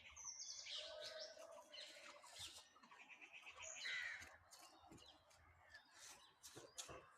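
Several wild birds chirping and calling at once, faint overlapping chirps and short whistles in a wooded morning chorus.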